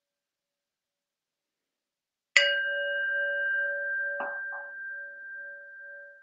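A meditation bell struck once about two seconds in, ringing on with a clear high tone over a wavering lower hum and slowly fading; a brief soft knock sounds about two seconds after the strike.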